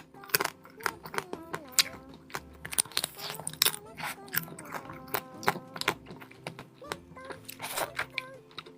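Close-miked eating sounds: repeated irregular crunchy bites and chewing, over background music.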